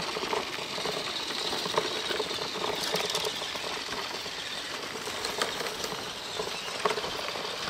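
Small electric RC crawler truck driving over a dirt trail: its motor and gears whine steadily, with a few sharp crackles scattered through.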